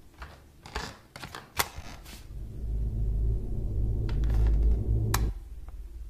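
A few soft knocks and clicks, then a low rumbling horror drone that swells in about two seconds in. It cuts off abruptly on a sharp click about five seconds in, leaving only a faint low hum.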